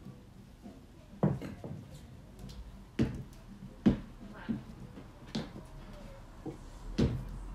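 A run of separate sharp knocks and thuds from a kettlebell being set down on paving and feet landing on and stepping off a wooden plyo box during box jumps. The loudest knock comes about four seconds in.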